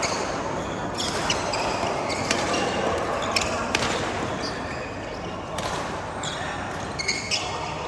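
Badminton rally in a large hall: several sharp racket hits on the shuttlecock at uneven intervals, with short shoe squeaks and footsteps on the court floor and voices in the background.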